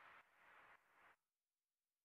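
Near silence: the last faint beats of fading background music die away in the first second.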